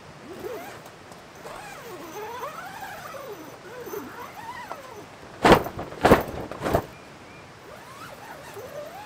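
Three loud knocks about half a second apart, about halfway through, as a wooden stool is handled and set down. Before them, a run of rising and falling squeaks.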